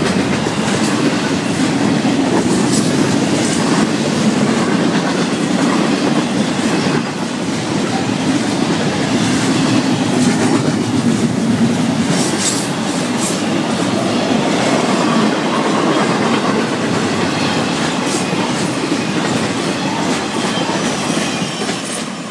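Freight train cars rolling past: a steady loud rumble of steel wheels on rail, with the clickety-clack of wheels over rail joints.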